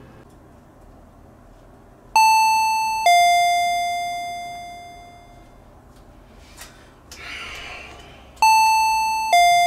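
Electronic two-tone ding-dong chime, a higher note falling to a lower one, rung twice about six seconds apart, each note dying away slowly. A short rustle comes just before the second chime.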